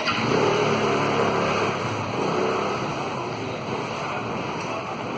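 Street noise with a motor running, loudest in the first two seconds, under a steady rushing haze.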